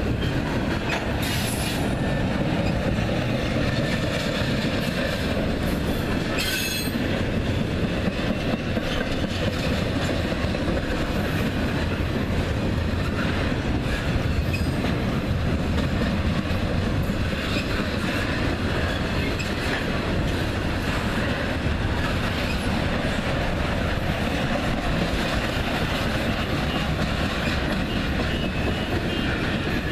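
Double-stack intermodal freight train rolling past at close range: a steady rumble and clatter of steel wheels on the rails. Brief high-pitched wheel squeals come about a second and a half in and again around six and a half seconds.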